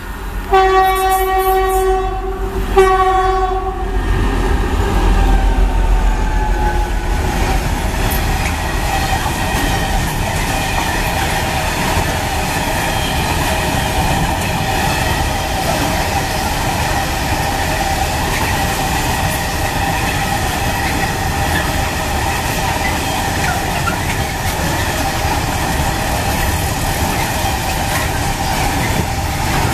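Class 232 'Ludmiła' diesel locomotive sounds its horn twice in the first four seconds. Its engine then passes close by with a deep rumble. A long freight train of loaded open wagons follows, rolling past with steady wheel rumble and clatter and a ringing tone over it.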